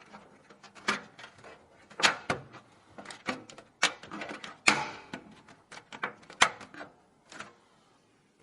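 Hands handling and fitting computer components during a PC build, making a series of sharp clicks and knocks at irregular intervals, with a brief scraping rustle about four to five seconds in.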